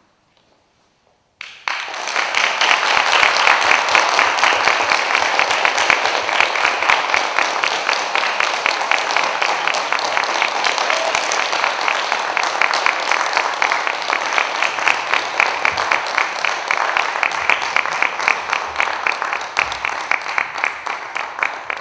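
Audience applauding. The applause breaks out suddenly about a second and a half in after near silence, then stays full and eases a little toward the end.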